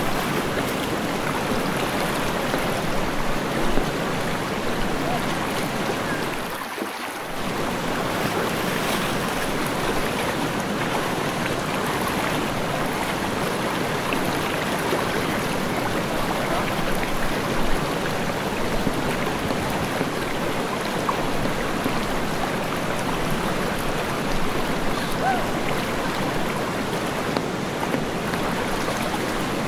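Steady rush of a fast-flowing river's current, with a short dip in level about seven seconds in.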